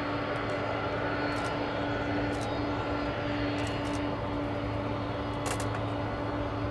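Boeing 767-300ER's twin jet engines running steadily at low power as the airliner rolls along the runway after landing: a steady jet hum with a held whining tone.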